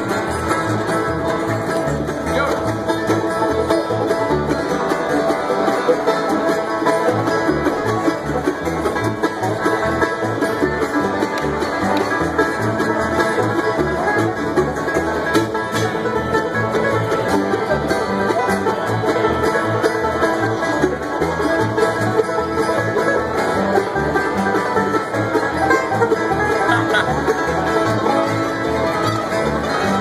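A live acoustic bluegrass band playing an instrumental: banjo, mandolin, acoustic guitar and upright bass, with the bass keeping a steady beat underneath.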